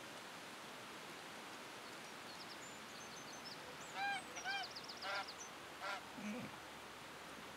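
Domestic white geese honking: a few short, arched honks from about four seconds in, the first two the loudest, over a steady background hiss.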